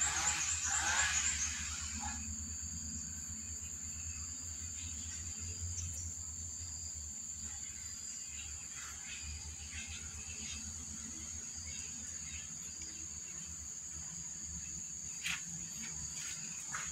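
Steady, high-pitched insect chirring, with a low steady hum underneath and a few faint clicks.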